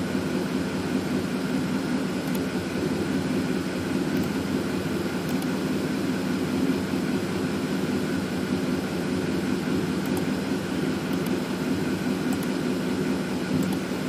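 Ford 5.4-litre three-valve V8 idling with a steady drone and hiss. The engine carries a misfire, with cylinders 1 and 7 reading weak on power balance.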